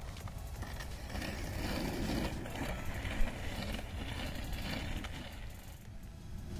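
A child's plastic-wheeled kick scooter rolling along a concrete sidewalk, a steady rolling rumble with a single knock about three seconds in.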